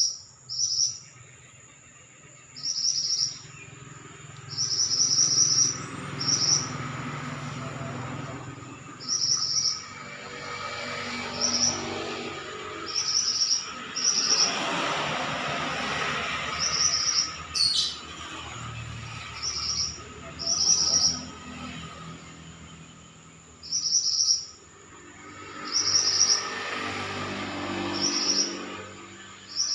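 Pied bushchat (burung mantenan) singing vigorously: short, bright, high-pitched phrases repeated every second or two, over a steady high whine.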